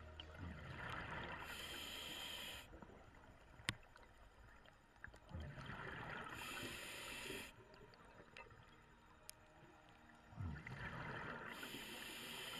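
A scuba diver breathing through a regulator underwater: three breaths about five seconds apart, each a rush of hiss and bubbling. There is one sharp click between the first and second breaths.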